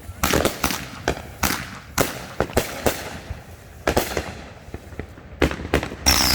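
Fireworks going off: a dozen or so sharp bangs in an irregular series. Just before the end a falling whistle and a hiss begin.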